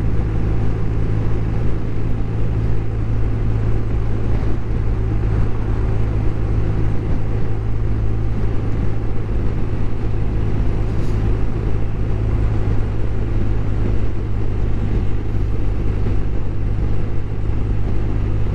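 BMW R1250RT motorcycle at a steady cruise, its 1250 cc boxer-twin engine droning evenly under wind rush on a helmet-mounted camera.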